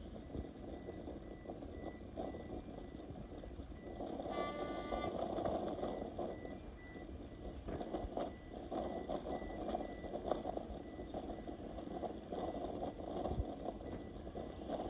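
Class 33 diesel locomotive D6575 running as it moves slowly forward, its engine getting louder about four seconds in. A brief high tone sounds at that point, and a faint high beep comes and goes.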